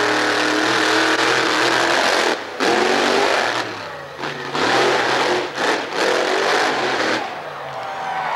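Monster truck engine revving hard as the truck runs across the dirt arena, its pitch climbing and falling with the throttle. It cuts back briefly a few times, most sharply about two and a half seconds in.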